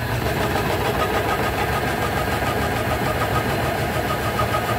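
Dough divider-rounder's electric drive switching on abruptly and running steadily with a fast, even rattle while its lever is held down, working the dough into balls.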